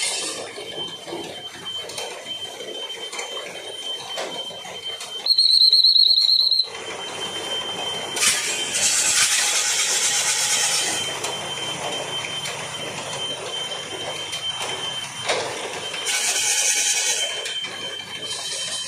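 A pea whistle blown in one loud, trilling blast of about a second and a half, about five seconds in, while a pair of bulls runs around a Persian-wheel well track. A thin steady high tone runs throughout, with two longer stretches of rushing noise later on.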